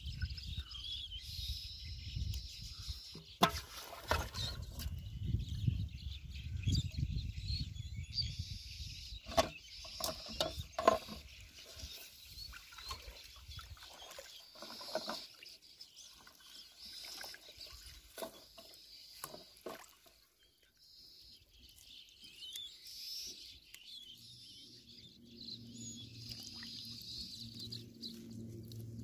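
Shallow water splashing and sloshing, with a few sharp knocks, as hands work a plastic bottle trap in it. Birds chirp faintly in the background. A low steady hum comes in near the end.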